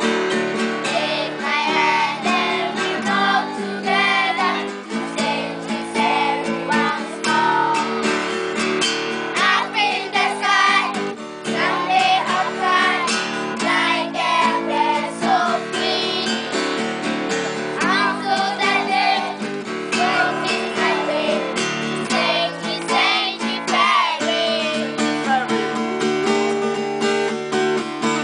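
Children singing a song together to a strummed acoustic guitar.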